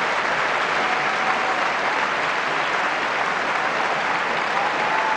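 Tennis stadium crowd applauding steadily, with a faint whistle or two near the end.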